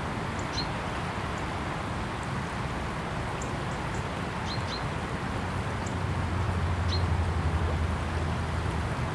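Small river's water rushing steadily over ripples, with a low rumble underneath that swells about six seconds in. A few short high chirps from a small bird come through, twice close together near the middle.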